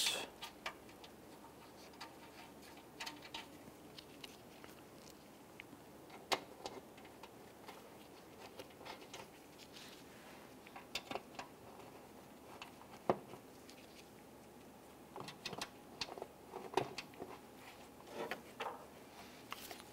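Scattered light clicks and ticks of bolts being handled and started by hand, with a few sharper ticks among them.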